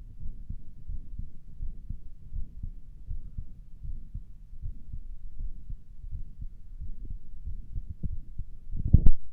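Heartbeat heard through a stethoscope on the chest: repeated low, dull thumps, which the person listening finds weird and wonders may be a heart murmur. Near the end there is one louder bump.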